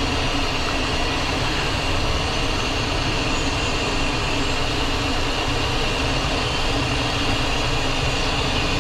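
Cockpit noise of a Cessna Citation XLS business jet with its two Pratt & Whitney PW545 turbofans running: a steady rush with a constant high whine, holding level with no spool-up.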